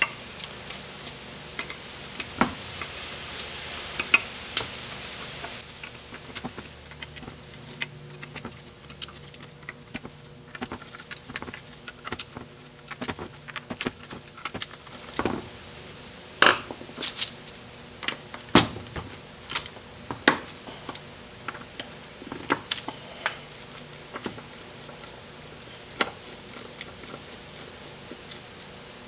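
Small metal parts and hand tools clinking and tapping on a workbench while a 727 automatic transmission valve body is taken apart: irregular sharp metallic clicks, with a soft hiss in the first few seconds.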